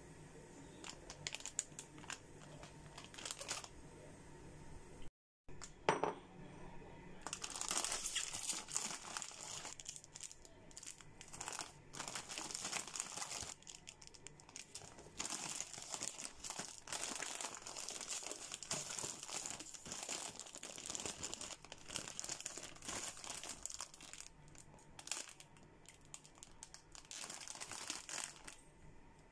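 Plastic instant-noodle packet crinkling and rustling as it is handled and opened, and the seasoning sachets and noodle block are taken out. The crinkling is faint at first and becomes loud and continuous from about seven seconds in, stopping shortly before the end.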